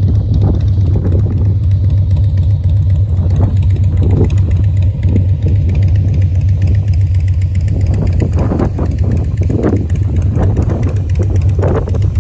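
Harley-Davidson Breakout's V-twin engine running steadily with a deep, even low note and no clear rise or fall in pitch.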